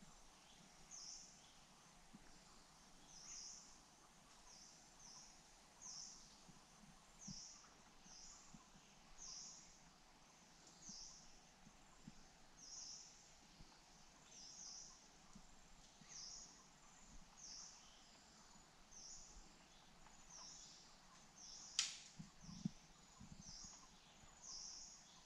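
Faint, high, short chirps repeating about once a second, with one sharp click a little before the end.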